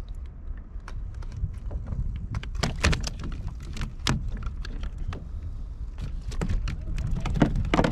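Irregular clicks and knocks of gear being handled on a kayak, over a steady low rumble of wind on the microphone.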